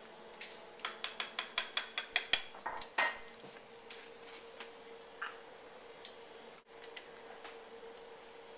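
A quick run of about a dozen sharp clinks, some five a second, then a few scattered ones: metal measuring spoons on a ring knocked against a glass mixing bowl to empty dry ingredients into the batter. A faint steady hum runs underneath.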